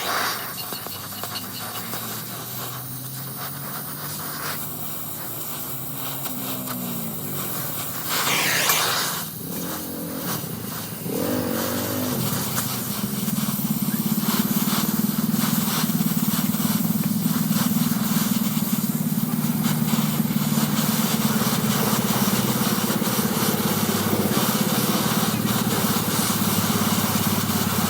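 A motor-driven workshop machine whose pitch rises and falls a few times, with a short loud hiss about eight seconds in. From about twelve seconds in it runs steadily with a low hum and a constant hiss.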